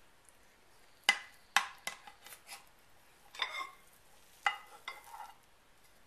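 Metal spatula scraping and clinking against a ceramic baking dish while cutting out and lifting a portion of baked cheese manicotti: a string of about ten short scrapes and clinks, some ringing briefly.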